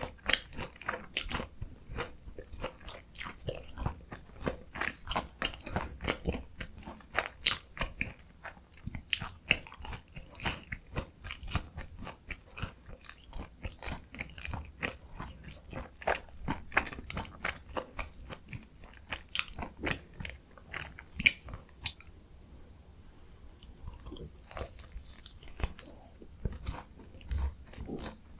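Close-miked chewing of a potato-crusted mozzarella corn dog: a rapid string of crisp crunches as the fried potato coating is bitten and chewed. About three-quarters of the way through there is a brief lull before the crunching resumes.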